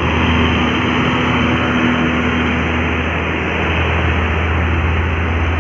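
Heavy diesel vehicle's engine working up a climb: a steady low drone with road noise, and a single steady hum through the first three seconds.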